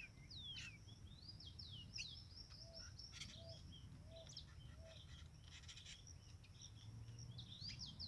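Faint chirping of small songbirds: quick, high, downward-sliding call notes throughout, with four soft, lower notes evenly spaced about midway.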